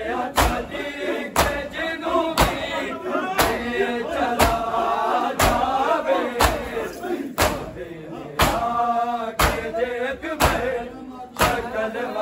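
A large crowd of men chanting a noha together. Loud collective chest-beating (matam) strikes land in unison about once a second, keeping the beat of the lament.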